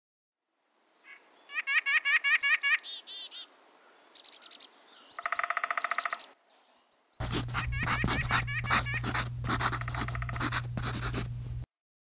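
Small songbirds chirping and singing: quick runs of short high chirps and a trill, then from about seven seconds a denser stretch of chirps over a low steady hum, which cuts off suddenly near the end.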